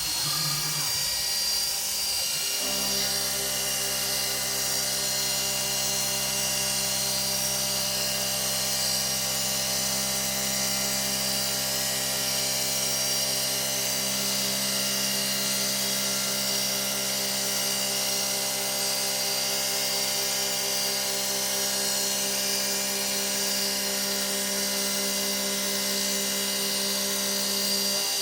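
DIY CNC milling machine running steadily, its spindle giving a high whine over a steady hum with several fixed tones, settling into an even note about two and a half seconds in.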